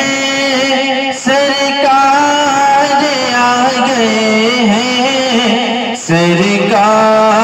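Male voice singing a devotional naat through a microphone: long held, melodic notes, briefly breaking off about a second in and again about six seconds in.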